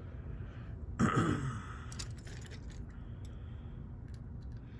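A man's sigh about a second in: a short breathy exhale that falls in pitch. It is followed by a few faint small clicks.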